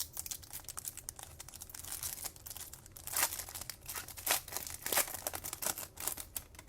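Foil wrapper of a Topps Chrome card pack being torn open and crinkled: a run of irregular crackles, busiest about three to five seconds in.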